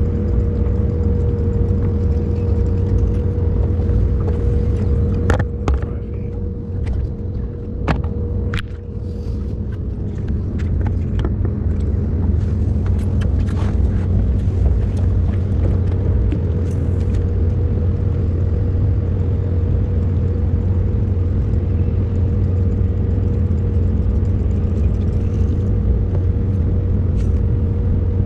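Small boat motor running steadily, with a constant hum over a low rumble. A handful of sharp clicks and knocks come in the first half.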